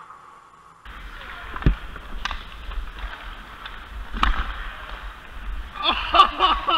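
Hockey rink sound picked up by a skater's action camera: a steady rushing noise with low rumble, broken by three sharp knocks of stick and puck in the first half. Players' voices call out near the end.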